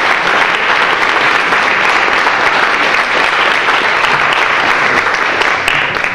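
Audience applauding, a dense steady clatter of many hands clapping that dies away near the end.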